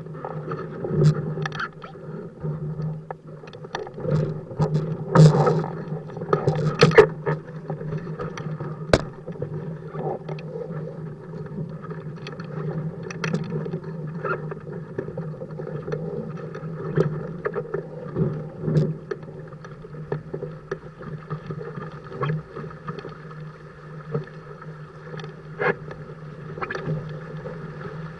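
Dart 15 Sting beach catamaran sailing fast in strong wind: water rushing and slapping against the hulls, with irregular splashes and knocks over a steady low hum.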